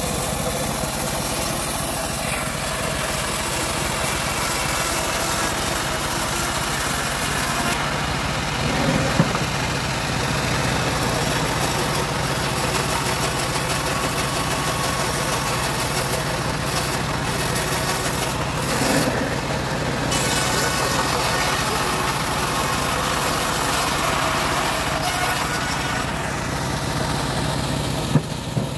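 Homemade bandsaw sawmill running steadily, its engine giving a constant low hum under a hiss of blade noise, with a few knocks of wooden boards being handled.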